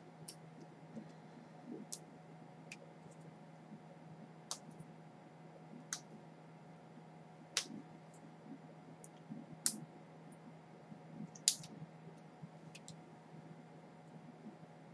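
Scattered sharp clicks and taps, roughly one every second or two and irregular, two louder ones near the end, from small hard objects being handled.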